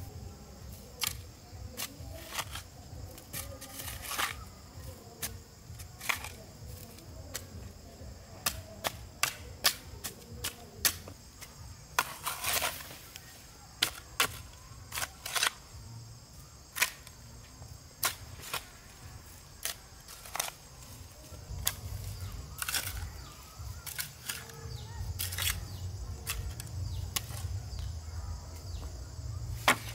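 A long-handled hoe chopping into dry, lumpy soil: sharp, irregular strikes, now and then several in quick succession, with a few longer scrapes as soil is dragged.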